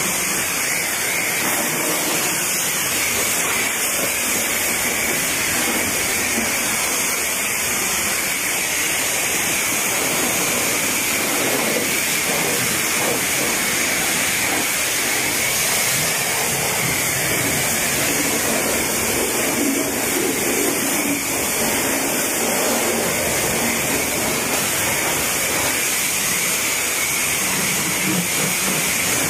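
High-pressure spray wand at a self-serve car wash blasting water onto a car's body and glass: a loud, steady hiss of spray.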